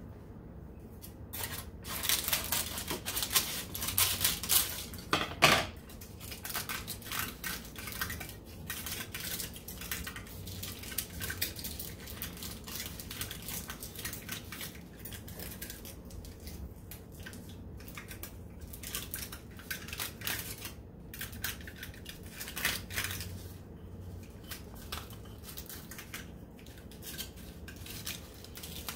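Aluminium foil crinkling and crackling in the hands as it is folded and pressed into shape, in irregular bursts that are loudest a few seconds in and lighter after.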